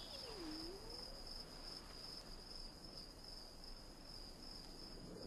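Steady high-pitched chirring of insects over quiet outdoor ambience, with a short low sliding hum in the first second.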